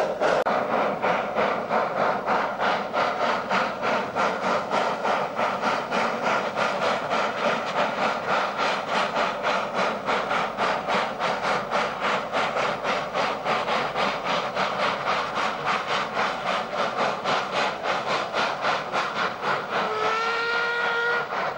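Two 0-4-0 industrial steam tank locomotives working hard, hauling a loaded mineral train up a steep 1 in 19 gradient: rapid, even exhaust beats with steam hiss. Near the end a steam whistle sounds, rising briefly in pitch, then holding.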